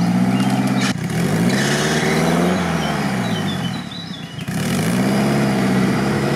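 Small 4x4 off-roader's engine revving under load as it crawls through swamp mud toward the water: the revs climb, fall away, dip briefly about four seconds in, then climb again.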